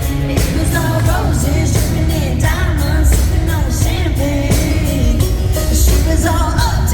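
Live country-rock band performance with a woman singing the lead vocal over drums and heavy bass.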